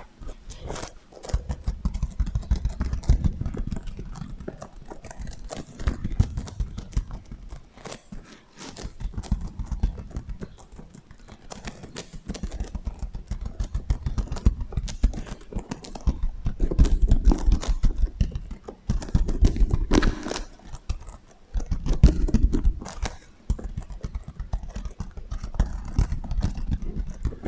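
Rapid tapping and scratching on a sequin heart pillow, run through an echo effect: dense clicks over heavy low thuds, in bursts of a few seconds with short pauses between them.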